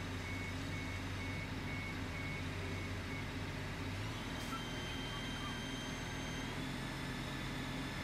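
Reversing alarm on a heavy work machine beeping at a steady rate, stopping about three seconds in, over the steady hum of its engine running. The engine note shifts about four seconds in.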